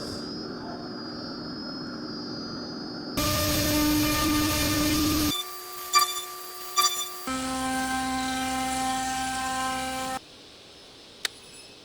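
Woodworking power tools, among them a CNC router cutting plywood, running steadily with a whine. The sound changes abruptly every two to three seconds as short clips follow one another, and a quieter stretch with a few sharp clicks comes near the end.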